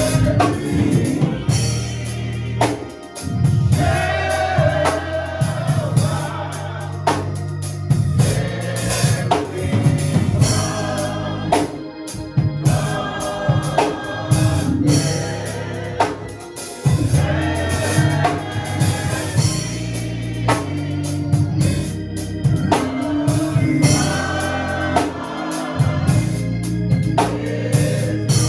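Gospel music: voices singing over a Hammond-style organ, bass and drums, with drum hits at a steady beat.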